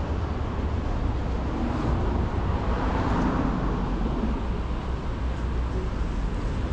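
City street traffic noise: a steady hum of cars and motor scooters with a deep rumble underneath, swelling briefly around three seconds in.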